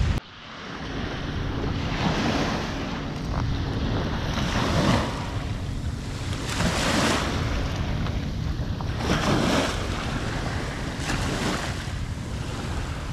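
Waves washing onto the shore, surging every two seconds or so, with wind buffeting the microphone.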